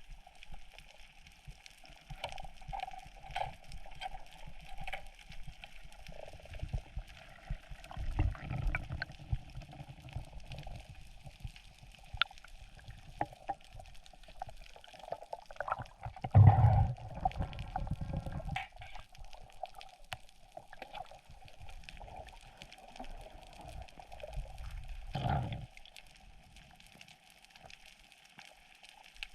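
Underwater sound heard through a camera housing: muffled water movement and gurgling, with irregular low surges, the loudest a little past the middle and another near the end that stops suddenly.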